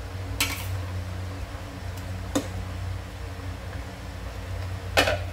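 Metal spoon knocking against the side of an aluminium cooking pot three times while stirring a curry, over a steady low hum.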